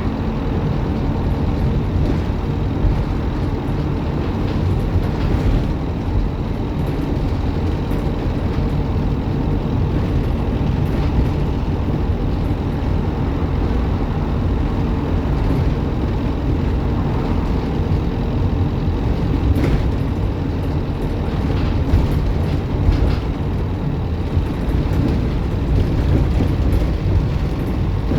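Optare Solo M950 single-deck bus running along, with a steady engine and road rumble and scattered short rattles and knocks.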